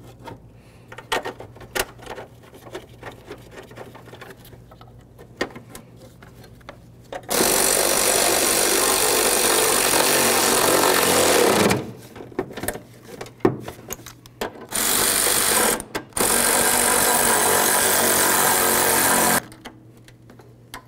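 Cordless ratchet running bolts down into the battery tray in three runs: a long one about a third of the way in, a short one, then another long one. Light clicks of parts being handled come before and between the runs.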